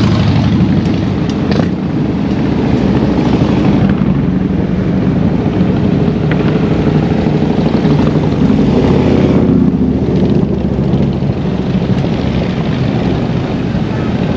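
Motor vehicle engines running with road and wind noise, a loud, steady low rumble.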